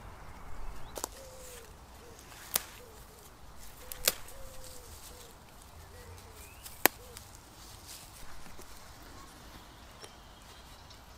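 Sharp snaps of white campion stems breaking as the leaves are picked by hand, four in all, about a second, two and a half, four and seven seconds in, the last the loudest, with brief rustling of the foliage near the start.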